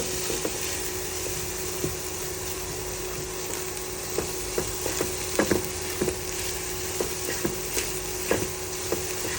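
Oil sizzling steadily as chicken, garlic, scrambled egg and carrot stir-fry for fried rice, with a spatula knocking and scraping against the pan at irregular moments, several close together about five and a half seconds in.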